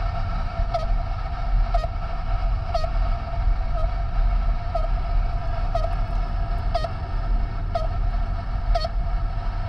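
Radio-frequency tracking receiver giving short pitched bleeps about once a second, over the car's engine and road noise inside the cabin. The bleeps show that it is picking up the signal of an Automatrics MTrack theft-recovery tracker, and they are getting louder as the car closes on it.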